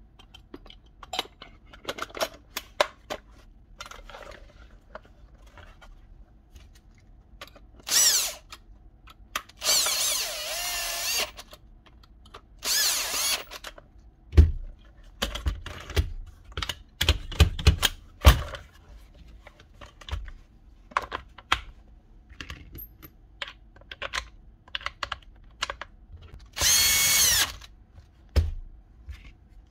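A small power tool motor whirs in four short bursts of about a second each, amid frequent clicks and clatter of tool parts being handled, with a run of heavier knocks about halfway through.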